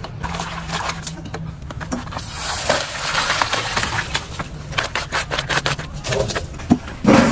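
Water poured from a steel basin through a plastic mesh basket, splashing onto the ground for about two seconds from two seconds in. Around it are clicks and knocks of the plastic basket and metal basin being handled, with a thump near the end.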